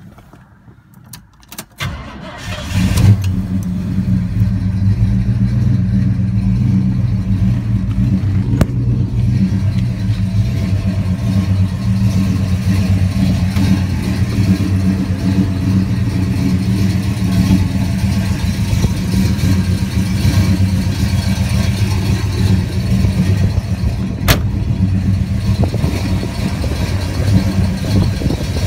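A 1970 Pontiac GTO's V8 engine starts up about three seconds in, catching quickly, then idles steadily. Two brief sharp clicks sound partway through.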